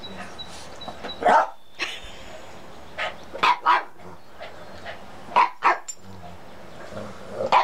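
Small dogs barking: about six short, sharp barks, several of them in quick pairs.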